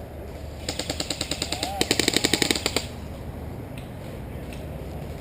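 Airsoft electric rifle firing one full-auto burst of about two seconds, starting about a second in, at roughly a dozen rapid clicking shots a second, louder in its second half.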